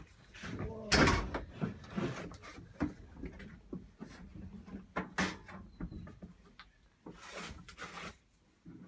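Things being rummaged and handled: toys and a plastic storage tub shifted about and a wooden-stocked rifle lifted off a metal shelf, making irregular knocks, clunks and rattles, the loudest about a second in.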